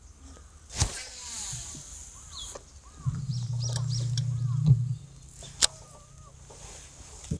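Birds calling, a run of short rising-and-falling notes. A low steady hum comes in for about two seconds in the middle, and two sharp clicks stand out, one near the start and one near the end.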